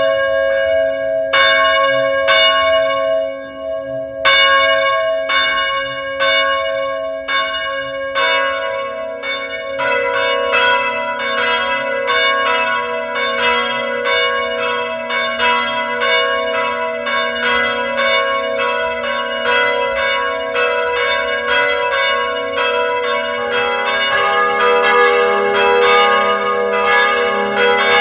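Church bells ringing: a few spaced-out strokes at first, then from about eight seconds in several bells of different pitch struck one after another, about two strokes a second, each ringing on into the next.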